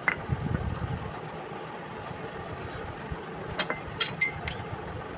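Steady low background hum, with a few light clicks and a short ringing metallic clink about four seconds in.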